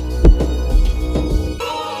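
Electronic background music: sustained synth chords over a deep, spaced kick-drum beat, with the chord changing about one and a half seconds in.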